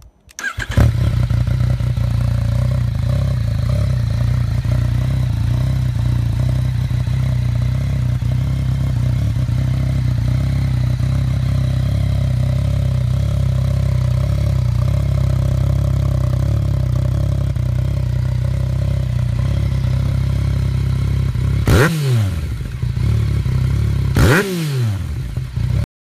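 Yamaha XSR900's inline three-cylinder engine through a Black Widow aftermarket exhaust, starting up about a second in and idling steadily. Near the end the throttle is blipped twice, the pitch rising and falling each time.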